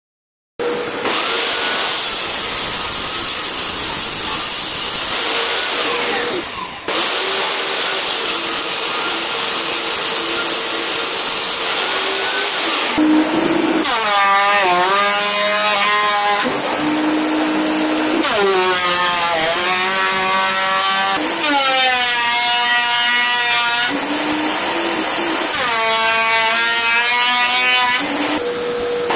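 Makita thickness planer running loud and steady. From about halfway through, boards feed through it four times, and each cut adds a pitched buzz from the cutterhead that sags under load and recovers.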